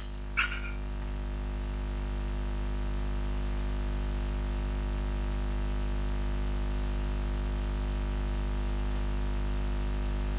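Steady electrical mains hum with a stack of even overtones, unchanging throughout. A brief faint hiss comes about half a second in.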